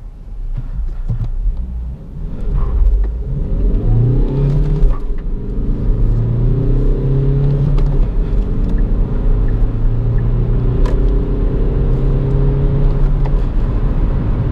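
Kia Optima SW's 1.7 CRDi four-cylinder turbodiesel heard from inside the cabin under acceleration. Its note rises in pitch in the first few seconds, then drops back and climbs again several times as the gears change.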